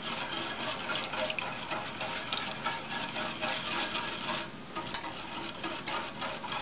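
Wire whisk stirring sugar syrup in a stainless steel saucepan: a steady wet swishing with many small scrapes and ticks of the wires against the pan as the sugar dissolves.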